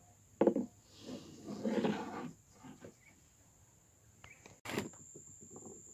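Dry carnaúba palm stalk being handled on a wooden tabletop: a sharp knock about half a second in, a scraping rustle around two seconds in, and a few lighter taps near the end.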